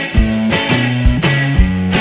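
Background music: a guitar strumming chords with a steady beat, a new strike about every half second.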